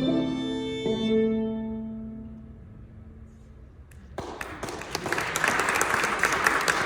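Final bowed violin notes, over lower sustained notes, ringing out and fading away. About four seconds in, a dense crackling noise of many small clicks starts and grows louder.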